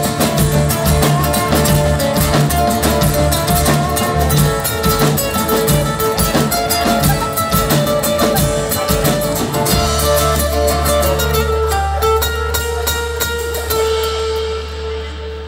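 Live band playing an instrumental passage on guitars and drum kit. About ten seconds in the drums stop and the band holds a final low chord that rings on until near the end, as the song closes.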